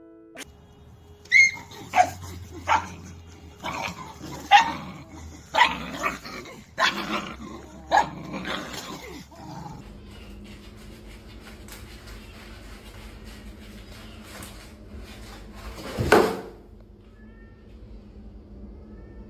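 A pet's short, sharp calls in quick succession, about nine in eight seconds, then a steady low hum with one more loud call about sixteen seconds in.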